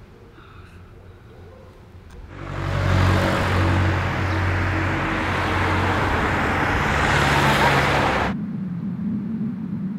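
Road traffic: a car driving past close by, with tyre noise and a steady engine hum. It starts suddenly about two seconds in and cuts off abruptly near the end, leaving a fainter low hum.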